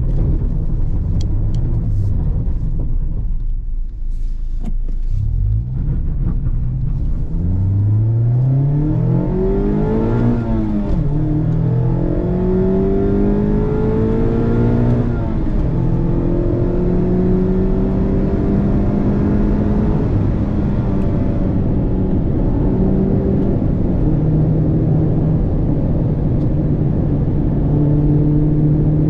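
Mazda MX-5's 2.0-litre four-cylinder through a Friedrich Motorsport Group A stainless cat-back exhaust, heard from inside the cabin. The engine pulls hard with its pitch rising quickly, drops at a gear change about ten seconds in, climbs more gently through the next gear, then settles into a steady cruise.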